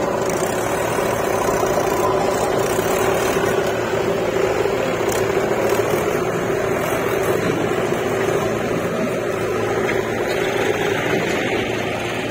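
Mahindra tractor's diesel engine running under load as it pulls a trolley heaped with mud past and away, a steady engine sound that fades slightly near the end as it moves off.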